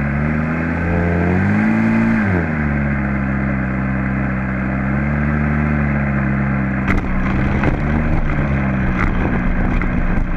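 Model airplane's small combustion engine running at low throttle, with a brief rise in pitch about two seconds in before it settles back. From about seven seconds in, irregular knocks and rattles sound over the engine.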